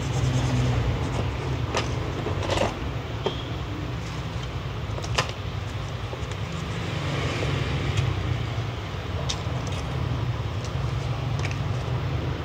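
Sandpaper strips and small tools being picked up and set down on a wooden workbench: scattered clicks and light taps, over a steady low hum.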